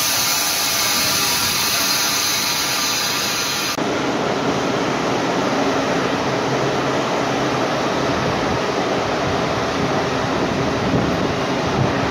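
A steady hiss with faint tones cuts off suddenly about four seconds in. After it comes the steady rushing and rolling of a passenger train's coaches passing on the track.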